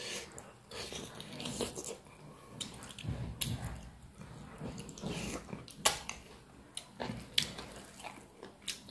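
Close-up eating sounds: biting into and chewing a piece of pork, with irregular sharp mouth smacks and clicks.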